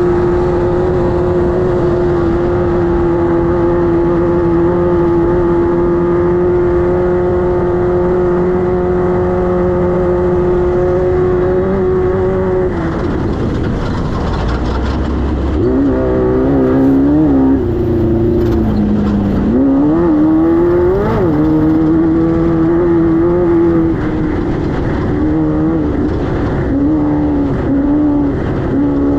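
Air-cooled 1600 cc VW engine of a Class 5-1600 off-road race car, held at steady high revs for about twelve seconds. It then drops off, revs up and down unevenly for several seconds, and pulls steadily again with a few brief dips near the end.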